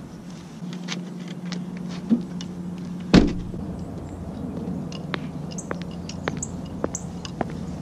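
A hatchback's tailgate slammed shut with one loud thud about three seconds in, followed by the steps of hard-soled dress shoes walking on an asphalt path.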